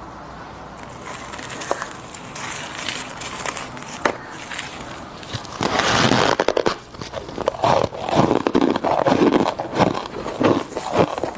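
Refrozen deep-freezer frost crunching: gloved hands crinkle and crush the frost at first, then from about six seconds in come loud, irregular crunches as she bites and chews a chunk of it.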